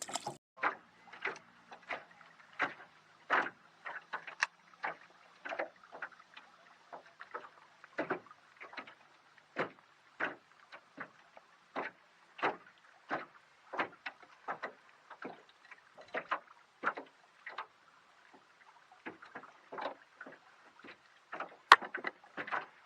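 Water splashing and slapping around a small boat in short, irregular splashes, about one or two a second, with no engine running.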